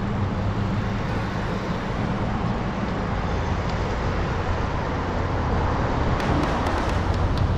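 Steady wind rushing over the microphone of a camera on a moving bicycle, mixed with road and traffic noise.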